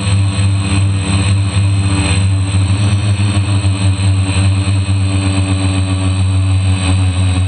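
DJI F450 quadcopter's four electric motors and propellers humming steadily in flight at a near-constant pitch, heard close up from the camera mounted on the drone.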